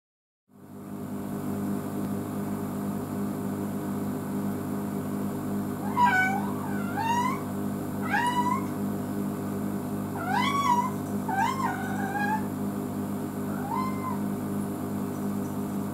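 Domestic cat meowing, a series of about seven meows starting about six seconds in, each rising then falling in pitch, the last one fainter. It is a cat calling out while left home alone, which the owner takes for loneliness. A steady low hum runs underneath.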